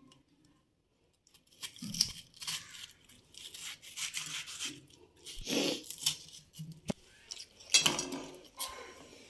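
Kitchen knife cutting through a watermelon wedge's flesh and rind on a countertop: irregular crisp, crunchy slicing strokes starting after a second and a half, with a sharp click about seven seconds in as the pieces go onto a plate.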